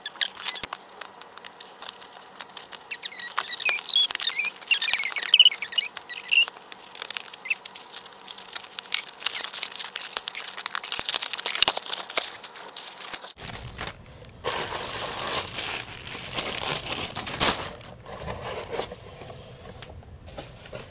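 Cardboard shipping box being opened by hand: crinkling, crackling and tearing of tape and cardboard, with a louder stretch of tearing past the middle.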